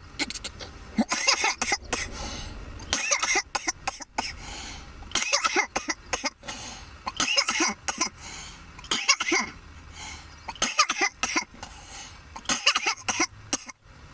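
A person coughing hard in repeated fits, about seven harsh bouts a second or so apart, after drawing on a joint of weed mixed with hash and kief: smoke-irritated coughing.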